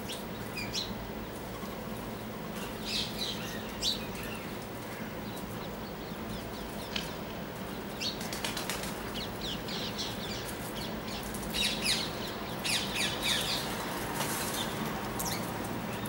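Birds at a feeder: scattered short, high chirps and wing flaps in clusters, busiest in the second half, over a steady low hum.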